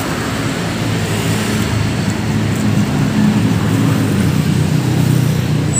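Road traffic: a motor vehicle's engine hum over steady road noise, growing louder towards the end as it passes close by.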